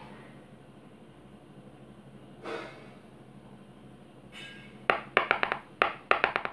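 A short sharp breath through the nose about two and a half seconds in, then, from about five seconds, a quick irregular run of sharp taps or knocks on a wooden tabletop close to the phone.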